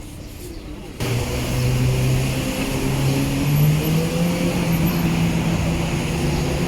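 A motor vehicle engine running close by, a steady hum that slowly rises in pitch. It comes in suddenly about a second in.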